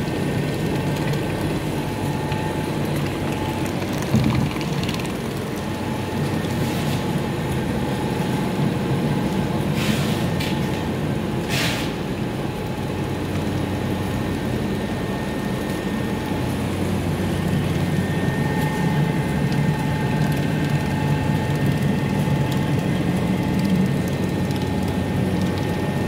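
Electric paint mixer running steadily, its shaft churning a drum of thick white paint, with a continuous motor hum. Two short hisses come about halfway through.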